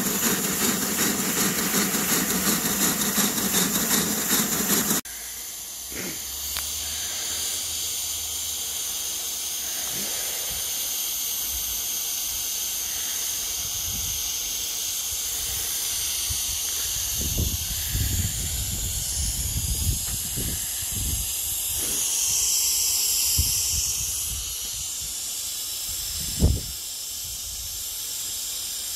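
5-inch-gauge Pansy live-steam locomotive running on a rolling road with a rapid, even beat. About five seconds in this cuts to a steady hiss of escaping steam, with a few low thumps and one sharp knock near the end.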